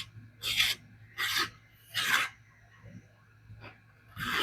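A Spyderco Manix 2 LW blade in CPM SPY27 steel, with a coarse 60-micron edge, slicing paper towel in short rasping strokes: four about 0.7 s apart, then one more near the end. The toothy edge cuts the towel but does not slice it cleanly.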